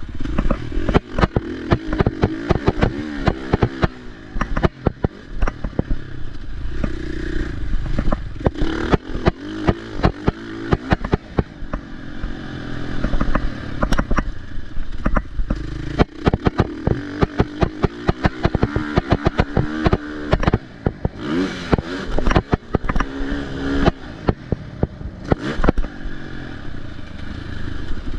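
Motocross bike ridden hard around a dirt track, its engine revving up and falling back over and over through shifts and corners. Frequent sharp knocks and clatter come from the bike over the bumps.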